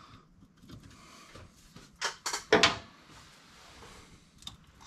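Hand-work clatter at the brake master cylinder: light clicks and two sharp knocks a bit over two seconds in, from tools and the Hydro Boost lines being worked free of their zip-tied bracket.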